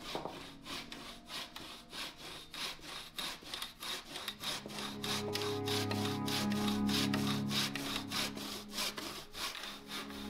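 Hand saw ripping a peeled wooden pole lengthwise in half, in steady back-and-forth strokes at about three a second. Background music comes in from about halfway through.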